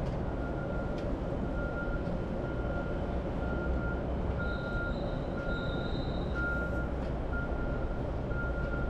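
City street traffic rumbling steadily, with an electronic beep repeating about once a second and a faint high squeal in the middle.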